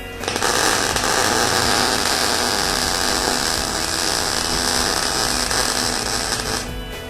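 Electric arc welder running a bead on thin stainless steel sheet: a steady crackling hiss that starts just after the beginning and cuts off near the end.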